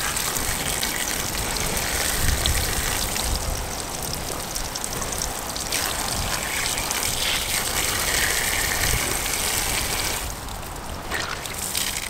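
Water running from an outdoor garden tap onto a cloth towel held under it, soaking the towel, with a steady gushing, trickling sound that eases somewhat near the end.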